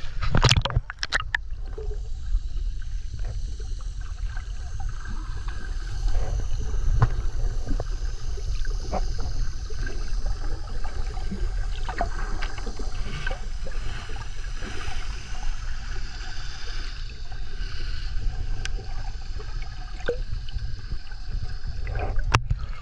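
Sea water heard underwater: a muffled low rumble with scattered small clicks and crackles. A splash as the camera goes under comes near the start, and another as it breaks the surface near the end.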